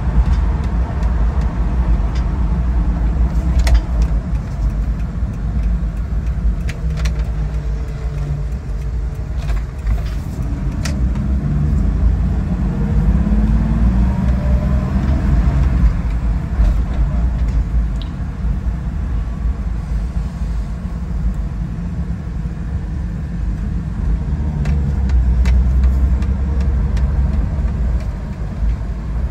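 Toyota Land Cruiser FJ60's 4.2-litre 2F straight-six engine and drivetrain heard from inside the cabin while driving: a steady low rumble. The engine note rises and falls a few times around the middle.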